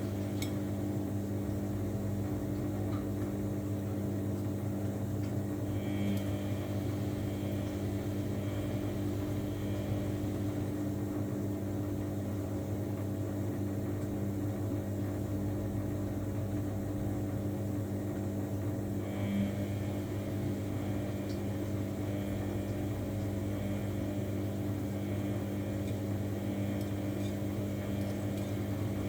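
Samsung washing machine running with a steady motor hum. A fainter, higher whir joins in about six seconds in and again near twenty seconds.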